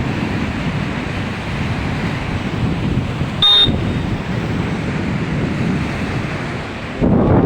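Floodwater rushing past in a steady roar, with wind buffeting the microphone. A brief high-pitched tone sounds about halfway through, and a louder gust of rumble comes near the end.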